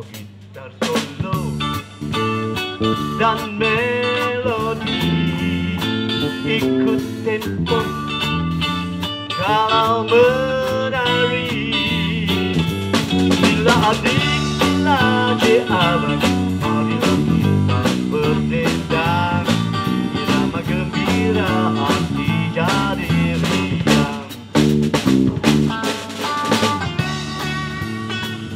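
Live rock band of electric guitar, electric bass and drum kit playing an instrumental twist-rhythm break, the lead guitar soloing with bent notes over the bass and a steady drum beat. The band comes in about a second in.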